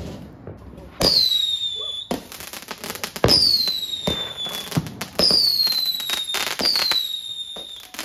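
Fireworks firing shot after shot, about four launches roughly every one and a half to two seconds. Each launch bangs sharply and is followed by a whistle that falls in pitch over about a second, with crackling in between. The first second is quieter crackling from a burning fountain.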